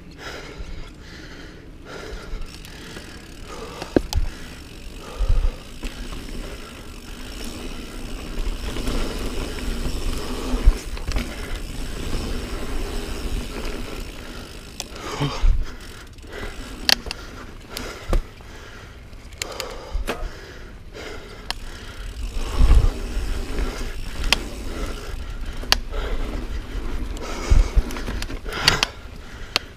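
Niner Jet 9 RDO mountain bike ridden over dirt singletrack: a steady rush of tyres rolling on sandy dirt, with rumbling surges and scattered sharp knocks and rattles from the bike as it goes over bumps.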